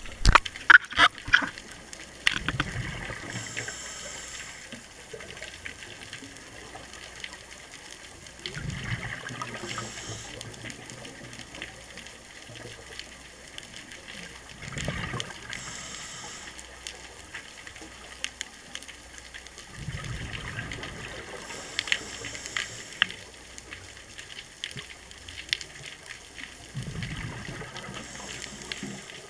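Scuba regulator breathing underwater: about five breath cycles roughly six seconds apart, each a hiss of air through the regulator and a low gurgling rush of exhaled bubbles. A few loud sharp clicks come near the start.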